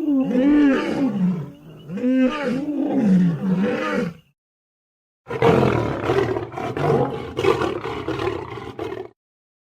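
Lion roar sound effects: a series of roaring calls that rise and fall in pitch, cut off after about four seconds, then after a second of dead silence a second, rougher and noisier roar lasting nearly four seconds.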